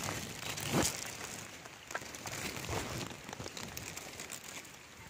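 Irregular rustling and crinkling with small crackles, loudest about a second in and easing off toward the end.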